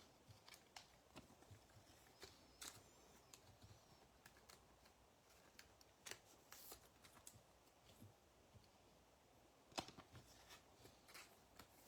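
Near silence with faint, scattered clicks and rustles of trading cards being handled on a table.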